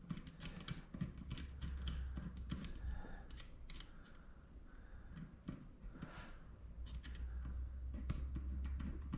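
Irregular small clicks and rattles of fuel pump parts, hose and clamps being handled and worked into place by hand, with a low rumble in two stretches.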